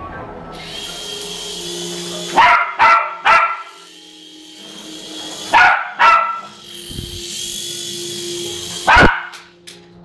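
Small dog barking at a toy remote-control helicopter: six sharp barks in three bursts, three, then two, then one. Between the bursts a steady high whirr comes and goes, the toy helicopter's rotor spinning.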